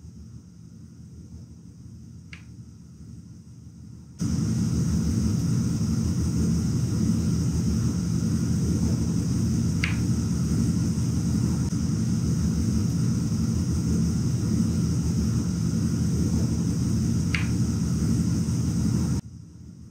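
Spirit box radio scanner sweeping through stations: a steady hiss and buzz of static with a fast flutter, switched on about four seconds in and cut off suddenly near the end.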